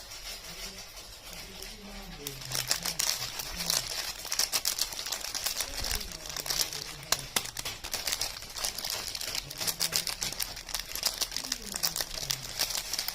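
Soap wrapper crinkling and crackling as a soap bar is unwrapped by hand, starting about two seconds in as a dense run of crisp crackles.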